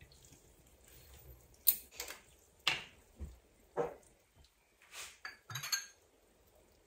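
A glass soy sauce bottle and a small shot glass being handled on a kitchen counter: a scattered series of sharp clinks and knocks as they are picked up, set down and opened for pouring.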